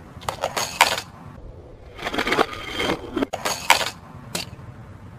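Hard toy vehicles clattering and clicking as they are handled and set down on a toy ramp: three short bursts of rattling, then a single click near the end.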